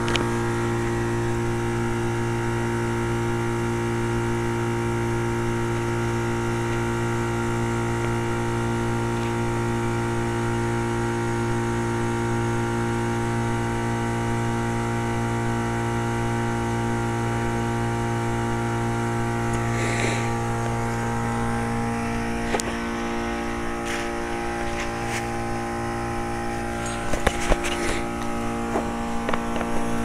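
1998 Trane XL1800 5-ton heat pump running steadily in its defrost cycle, reversed into cooling mode, with a constant mechanical hum from its reciprocating compressor. The defrost has run unusually long, which the owner takes for demand defrost that will not stop until all the ice is off the coil. There are a few brief rustles and clicks about two-thirds of the way through and near the end.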